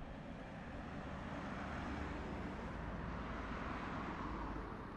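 A vehicle passing by on the street, its tyre and engine noise swelling to a peak about two to four seconds in and easing off near the end.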